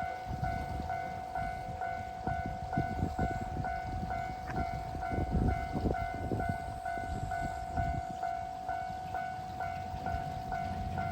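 Level-crossing alarm bell ringing in a fast, even repeat, while a HOT7000-series diesel train passes with low rumbling and irregular thumps of the wheels over the rail joints.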